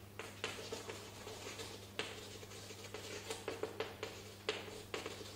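Chalk on a blackboard as a heading is written: a run of short, irregular taps and light scrapes, over a steady low hum.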